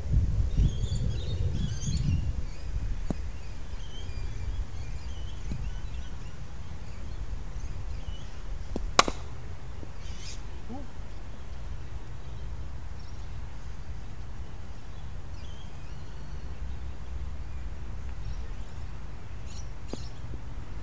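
Outdoor ambience: birds chirping over a steady low rumble, with one sharp click about nine seconds in.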